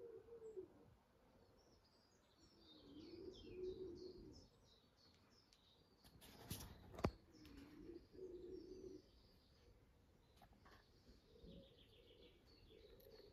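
Faint bird calls: low cooing phrases repeating every few seconds and bursts of high chirping. One sharp knock about seven seconds in.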